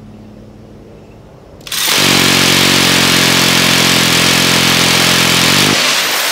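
A low steady hum, then about two seconds in a minigun opens fire. The shots run together into one loud, continuous buzz for about four seconds, and its low tone drops out near the end.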